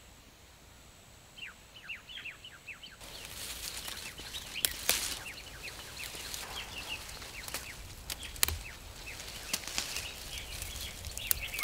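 Birds chirping in quick, repeated falling notes. From about three seconds in, fern fronds rustle and several sharp snaps come through as fern shoots are picked by hand, while the birds keep calling.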